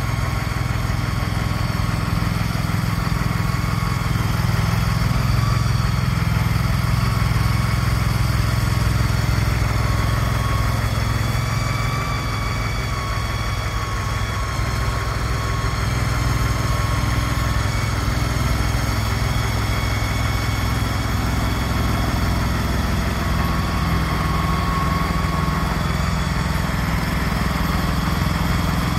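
Engine of a tracked shed-moving machine running steadily as it pushes a large portable shed.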